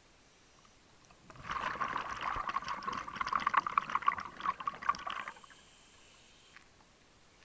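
Scuba regulator exhaust bubbles heard underwater: a dense, crackling gurgle of bubbles for about four seconds, starting about a second in, with quiet before and after.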